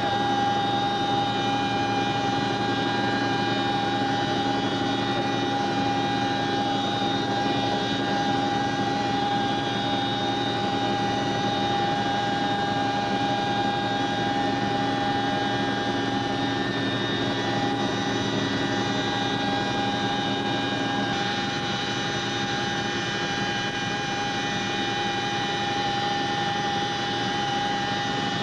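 CH-47 Chinook helicopter heard from inside its cargo cabin: engines and rotors running with a steady drone and a high, constant whine.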